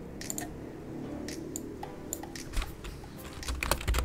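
Typing on a computer keyboard: a few single clicks, then a quick run of keystrokes starting about two and a half seconds in.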